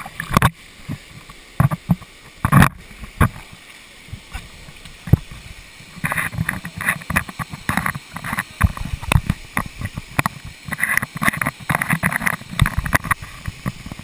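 Irregular knocks, scrapes and rubbing on a GoPro's waterproof housing as its wearer clambers up wet rocks, sparse at first and then dense from about halfway, over the steady rush of a waterfall.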